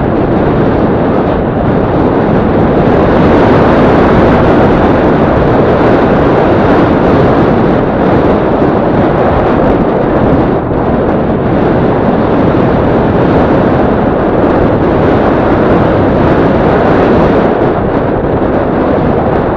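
Steady riding noise from a moving Yamaha Crypton-X motorcycle: loud wind rush on the microphone mixed with the running of its small single-cylinder four-stroke engine.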